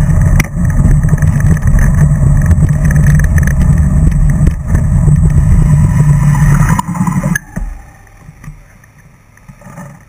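Loud low rumble of riding a bicycle through a road traffic tunnel. It cuts off abruptly about seven seconds in as the bike pulls over and stops, leaving only a quiet background with a few faint knocks.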